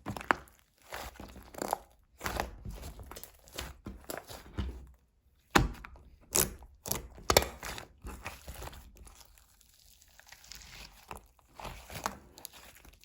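Hands pressing and stretching runny slime, with irregular sticky crackles and sharp pops. It goes quieter for a couple of seconds about two-thirds of the way through.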